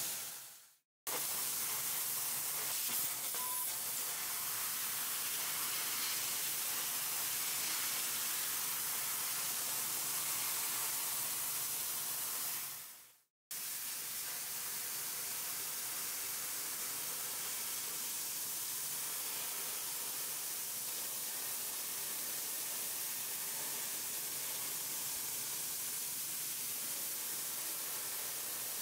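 12 kW fiber laser cutting head cutting thick brass and aluminium plate: a steady hiss from the cutting jet. It fades away and breaks off twice, just before the first second and around thirteen seconds, and each time comes back abruptly.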